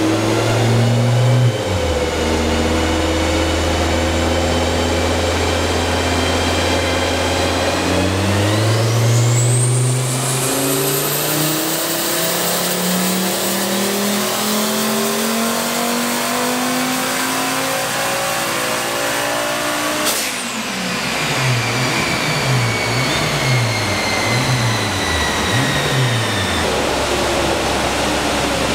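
Turbocharged VW 07K 2.5-litre inline five-cylinder on a chassis dyno, doing a full-load pull to 7,000 rpm on low wastegate boost. It holds steady revs, then from about eight seconds in climbs in one long rising sweep, and cuts off suddenly at the top. The revs then fall and swing down and up a few times as it winds down.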